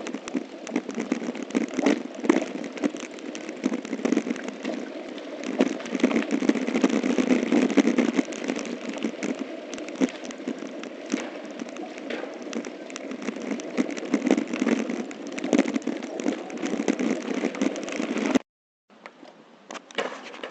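Mountain bike riding a bumpy dirt trail, heard through a bike-mounted action camera: a constant rattle and crackle of the camera jolting over the ground, with a noisy rush behind it. It cuts off suddenly near the end, leaving a few quiet clicks of the camera being handled.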